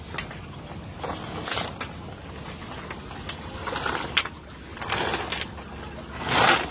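A wet fishing net being hauled by hand into a wooden boat: several swishing, splashing bursts as the net comes in. The loudest comes near the end.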